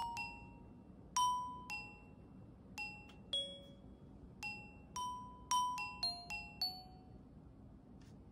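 Background music: a slow melody of single bell-like struck notes, glockenspiel-like, each ringing briefly and fading. The melody stops about seven seconds in, leaving only a faint hiss.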